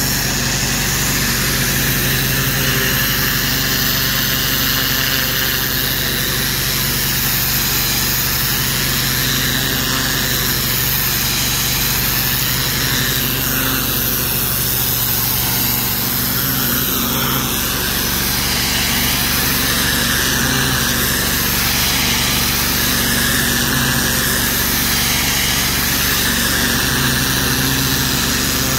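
Pressure washer running steadily: a motor's even drone under the hiss of a high-pressure water jet spraying against a brick wall.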